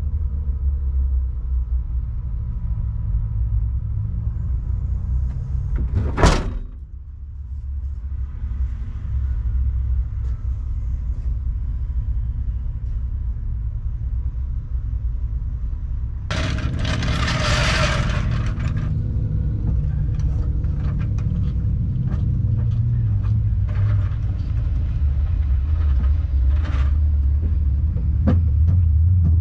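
Low, steady rumble of a car running, with one sharp knock about six seconds in and a few seconds of loud hiss a little past the middle.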